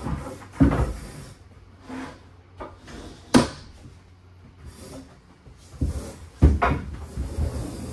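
Knocks and clunks of RV furniture being handled: a sliding L-shaped table and its chairs being set in place. There is a sharp click about three and a half seconds in, and the heaviest knocks come near the start and about six and a half seconds in.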